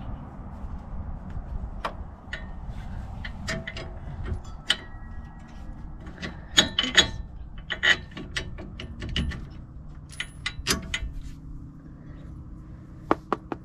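Irregular metallic clinks, clicks and knocks of hand tools and hardware as an adjustable sway bar link is fitted to an SUV's front suspension, some strikes ringing briefly. The busiest stretch comes about six to eight seconds in, with another around ten to eleven seconds.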